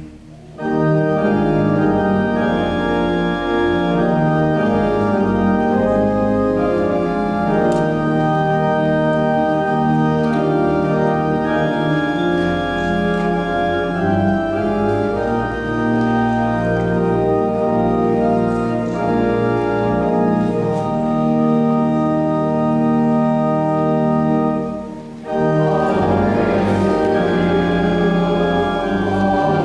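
Church organ playing slow, sustained chords. It breaks off briefly about 25 seconds in, then resumes with a choir singing along.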